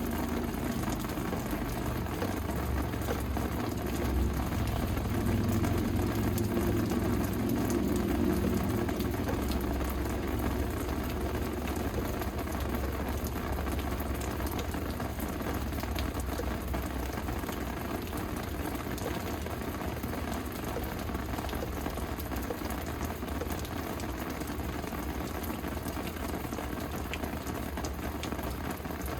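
Steady rain falling, an even hiss, with a low rumble that swells for a few seconds near the start.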